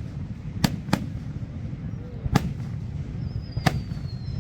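Fireworks bursting: four sharp bangs at uneven intervals over a steady low rumble. Near the end come high whistling tones that glide slowly downward.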